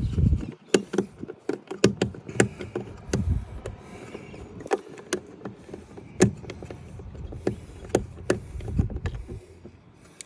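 Clicking, knocking and handling noise of a screwdriver and metal parts against the inside of a truck door as window regulator screws are driven in, with irregular sharp knocks throughout.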